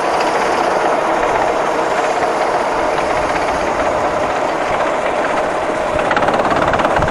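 A go-kart's small petrol engine running at speed, heard close up from the driver's seat. It gets louder about six seconds in as the kart comes out of the bend.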